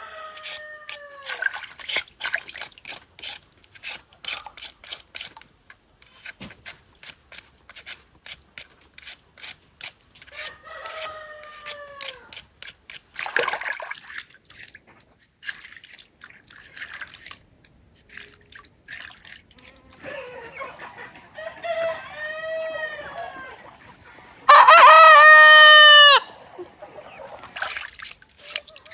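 Roosters crowing several times, with one much louder, close crow near the end. A steady patter of sharp clicks or taps runs underneath.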